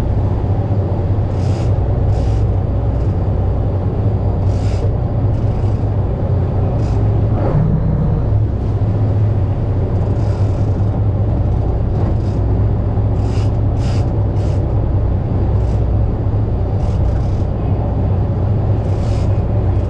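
Fishing boat's engine running with a steady low drone, with short hissy bursts of water or spray every second or two.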